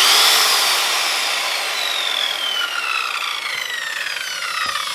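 Corded circular saw, its cut power cord just repaired, triggered on: the motor's whine climbs briefly as it spins up, then falls steadily as the blade coasts down.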